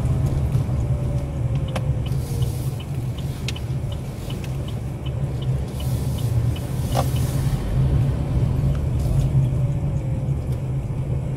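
Car driving slowly, heard from inside the cabin: a steady low rumble of engine and tyre noise, with a few light clicks and a faint falling whine now and then.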